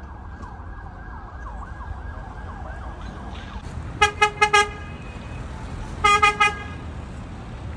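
A horn beeping in two quick bursts of four short toots, about two seconds apart, over faint warbling tones in the first half.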